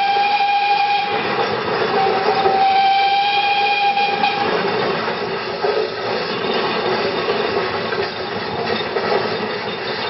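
Steam whistle of an Aveling & Porter compound 8-ton steam road roller blown twice, a steady high note, the first blast ending about a second in and the second lasting about two and a half seconds. After the whistle comes a steady running noise with hiss.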